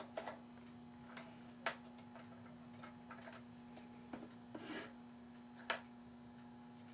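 Faint, irregularly spaced small metallic clicks and taps as a brass clock wheel is worked loose and pulled from a small lathe's chuck, over a steady low hum.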